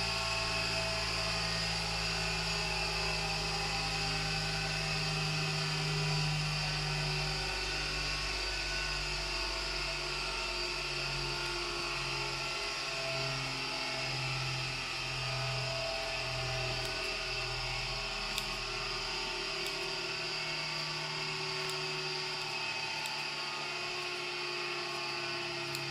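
Electric scissor-sharpening machine's motor running steadily. Its low hum pulses about once a second through the middle, and a few light ticks come later on.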